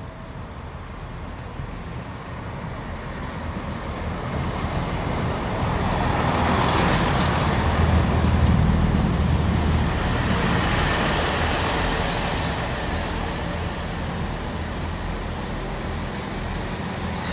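Class 165 diesel multiple unit arriving at a platform: its engine drone and wheel noise grow louder as it runs past, with a brief hiss about seven seconds in, peak about eight seconds in, then ease as it slows to a stop with its engines running on.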